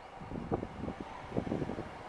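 Wind buffeting the camera microphone in irregular low thumps, over a steady background rumble.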